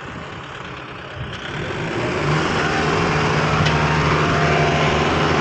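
Diesel tractor engines of a Kubota MU5502 and a John Deere 5405 revving up about a second in, then running hard and steady under load as they strain against the sand-bogged tractor and loaded trolley.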